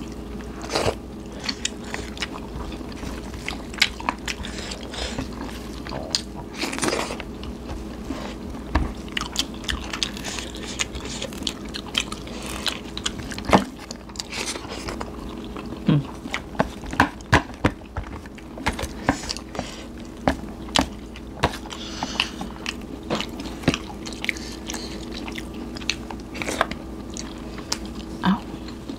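People chewing and biting food, with many sharp, irregular crunches, over a faint steady hum.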